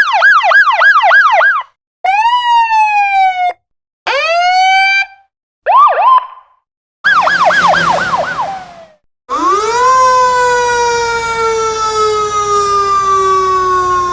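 A run of separate emergency-vehicle siren clips with short silences between: a fast yelp, a few short wails, a second yelp with a rushing noise beneath it, then a long wail that rises quickly and falls slowly.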